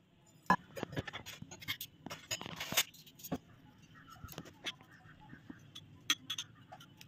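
Stainless steel spoons clinking and scraping against glass dessert bowls as they are set into them: a scatter of light clicks, busiest in the first three seconds and sparser after.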